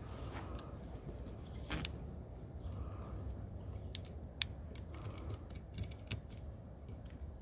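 Small hand cutters snipping at the corner of an aluminium screen frame: a string of sharp clicks, one about two seconds in and a cluster between four and six seconds, over a steady low background rumble.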